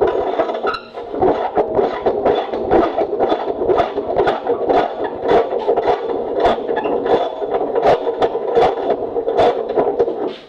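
Wrench working a rusted nut and bolt loose from a Willys CJ3B frame cross member: a steady grinding scrape of metal with a quick run of irregular clicks, several a second.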